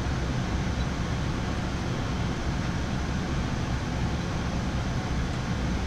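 Steady flight-deck noise of a Boeing 787-9 in flight: an even rush of air with a low rumble beneath it.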